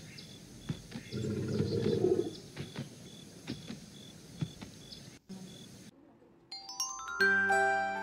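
Nature-scene sound effects: short, regular bird chirps and scattered clicks over a background hiss, with a low, rough animal call lasting about a second, starting about a second in. About seven seconds in, a bright chiming jingle of bell-like notes begins.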